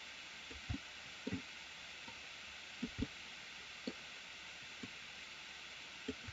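Faint steady hiss of a desktop microphone with a handful of soft, short low knocks at irregular intervals, about two of them close together near the three-second mark: the clicks and bumps of a computer mouse on a desk while sculpting.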